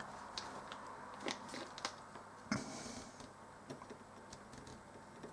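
Faint, scattered light clicks and taps of hand soldering on a circuit board: the iron tip and solder touching component pins. A slightly louder knock about halfway through is followed by a brief hiss.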